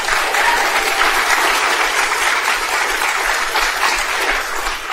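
Audience applauding steadily, starting to fade near the end.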